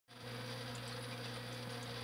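Aquarium pump running: a steady electric hum with an even hiss over it.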